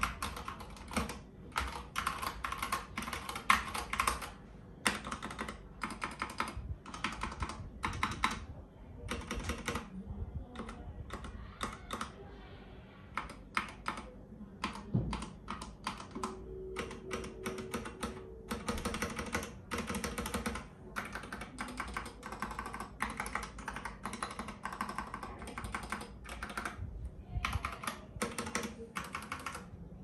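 Typing on a Melgeek Mojo 60 mechanical keyboard with Gateron brown switches: fast runs of keystroke clacks, thinning to scattered single key presses around the middle, then fast typing again.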